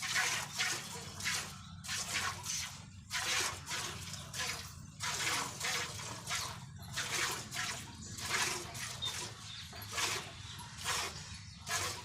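Milk squirting into a pail as a cow is milked by hand, in a steady rhythm of short spurts, roughly two a second.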